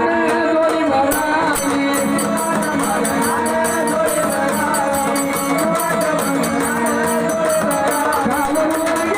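Marathi devotional folk music of the Vaghya Murali gondhal kind: a wavering melody over a steady beat of metallic jingling percussion.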